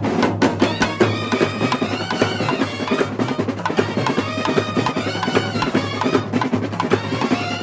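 Kerala-style brass band playing a film-song melody on trumpets, clarinets and euphoniums over rapid, even beats on side drums and bass drums.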